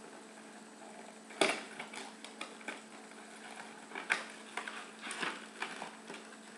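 Handling of skincare product packaging: irregular rustles and light clicks as a boxed set is opened, with a sharper knock about one and a half seconds in and another about four seconds in.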